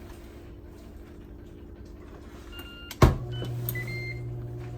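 Ninja Foodi cooker with a faint steady hum, then a sharp clunk about three seconds in as a louder, steady low hum starts up, typical of the lid being shut and the fan starting to run.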